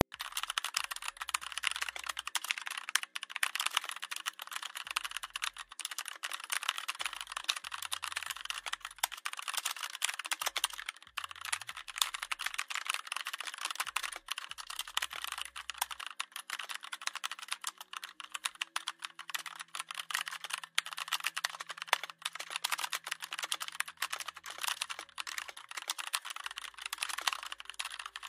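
Rapid, continuous computer-keyboard typing: a dense stream of key clicks.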